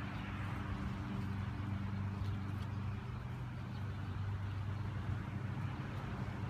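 A motor engine running steadily at one constant low pitch, with a light hiss over it.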